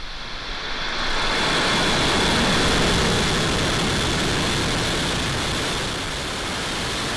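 Falcon 9 rocket lifting off, its nine first-stage Merlin engines giving a loud, steady rush of rocket exhaust noise. The noise swells about a second in and eases slightly near the end.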